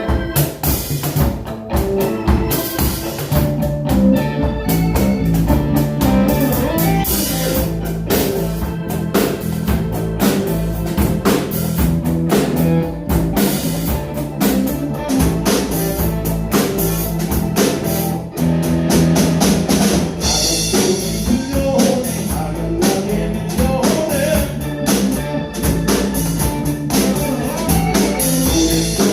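A band playing a pop-rock song, with a drum kit keeping a steady beat under guitar and other held notes.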